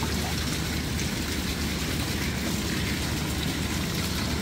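Swimming-pool water sloshing and lapping around a camera held at the surface as a person wades through it, heard as a steady rushing noise with a low rumble.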